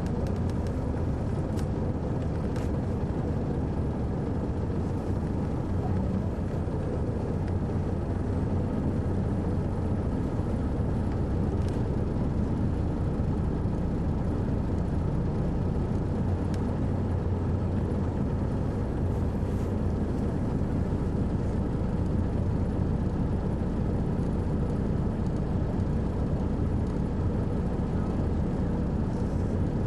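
Detroit Diesel Series 60 diesel engine of a 2001 MCI D4000 coach running steadily under way, heard from the rear seat inside the bus as a low, even drone.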